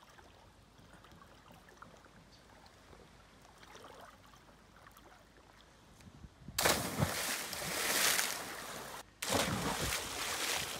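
Faint quiet ambience, then about six and a half seconds in a person dives into deep water with a loud splash and the rush of churned water. After a short break, splashing water is heard again and slowly fades.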